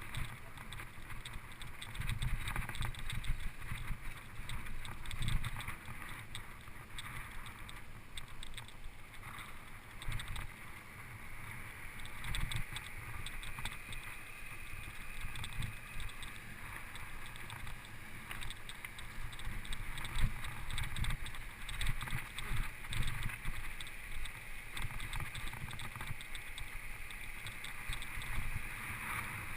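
Mountain bike rolling over a rough dirt trail, with irregular thumps and rattles and a steady rumble. The bike's suspension is described as making a lot of noise.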